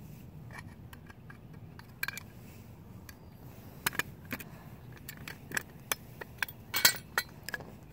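Metal clicks and scraping as a fire alarm pull station is opened up to reset it after being pulled. Scattered sharp clicks, coming thicker about halfway through, with the loudest near the end.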